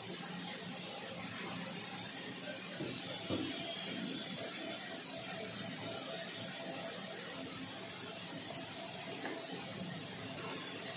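B&D BD-55EPM screw air compressor running steadily under test: a constant machine hum with a rush of air noise, and one brief knock about three seconds in.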